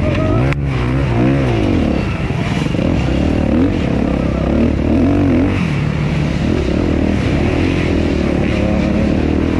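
Suzuki RM-Z250 four-stroke single-cylinder dirt bike engine under racing load, its pitch rising and falling over and over as the throttle is worked. A single sharp knock sounds about half a second in.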